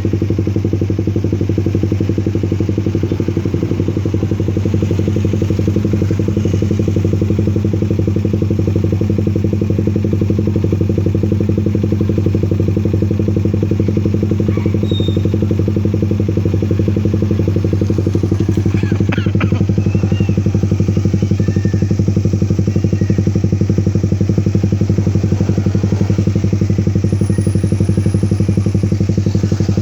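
Suzuki Raider 150 carb's single-cylinder four-stroke engine idling steadily through an HGM open exhaust pipe, at an even, unchanging pitch.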